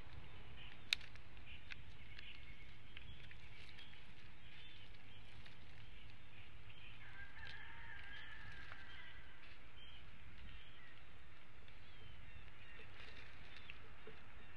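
Faint calls of wild birds over a steady low hiss of outdoor nest-camera ambience. There is one sharp click about a second in, and a longer wavering call around the middle.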